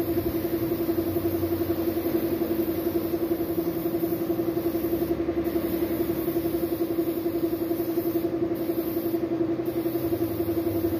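Air compressor running steadily with a fast, even pulsing hum, under the hiss of an air spray gun spraying paint. The spray hiss stops briefly about five seconds in and twice more around eight and nine seconds, as the trigger is let go.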